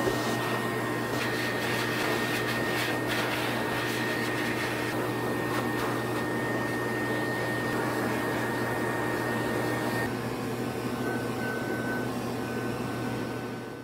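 High-velocity pet dryer blowing air through its hose and nozzle into a dog's thick double coat: a steady rushing blow with a motor hum and a thin whine. The whine shifts slightly lower about ten seconds in, and the sound fades near the end.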